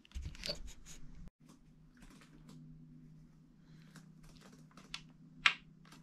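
Small metal connecting nuts being handled, with a few light clicks and clinks in the first second or so. Near the end, one sharp click as a nut is set into the hole in the wooden cross brace.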